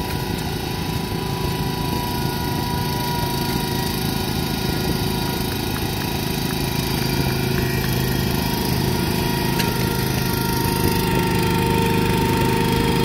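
Cub Cadet garden tractor's small engine running steadily under load as it pulls a weight sled, growing slightly louder toward the end.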